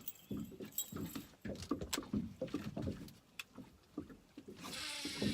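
Irregular knocks, thumps and rattles of gear being handled in a small fishing boat. A steady rushing hiss starts about four and a half seconds in.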